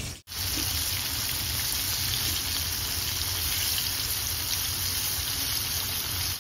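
Flour-coated whole fish deep-frying in a pan of hot oil: a steady, dense sizzle and crackle like rain. It starts just after a short gap at the beginning and stops abruptly at the end.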